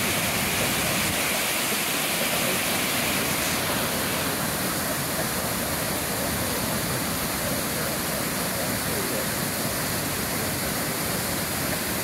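Waterfall cascade falling onto rocks: a steady rush of water, its hiss changing slightly in tone about four seconds in.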